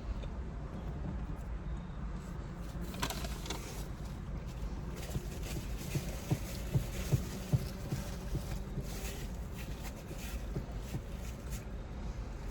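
Quiet eating and food-handling noises over a steady low background hum, with a brief rustle about three seconds in and a quick run of four or five soft thumps a little past the middle.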